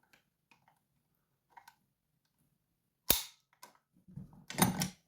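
One sharp knock about three seconds in, then a second or so of clattering and rubbing as the padlock is handled and repositioned in a bench vise.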